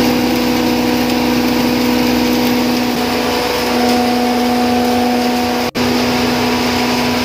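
Electric posho mill, a motor-driven hammer mill, running steadily while grinding maize into flour: a loud, even grinding noise over a steady motor hum, broken by a momentary dropout about two-thirds of the way in.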